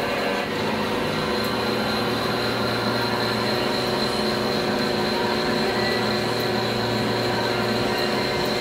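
TM-26120G centre lathe running under cut, a tool turning down the outside diameter of a steel hollow bar: steady machining noise with a high, steady whine.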